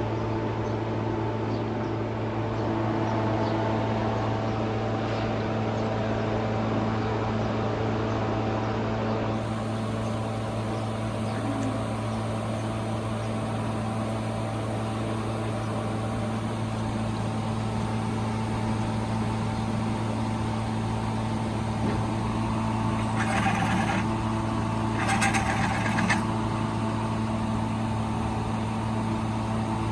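An engine running steadily with a constant hum. Near the end, two short bursts of hiss.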